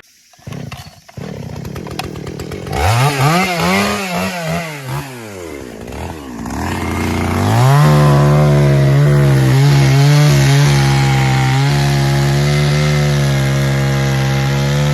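Two-stroke gasoline chainsaw engine: after some low rattling at first, it is revved up and back down once about three seconds in. About seven and a half seconds in it climbs to full throttle and holds there, loud and steady.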